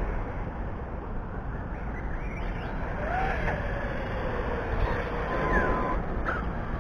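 Corally Kagama RC truggy's brushless motor (Hobbywing MAX6, 1650 kV, on 6S) whining as the car speeds up and slows, its pitch rising and falling in short glides about three seconds in and again near the end. A low steady rumble runs underneath.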